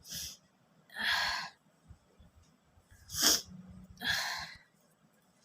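A person's breathy nasal sniffs and sharp snort-like exhalations, four in all, while tickling the nose with rolled paper to bring on a sneeze. The third burst is the sharpest and loudest, a half-sneeze, but no full sneeze comes.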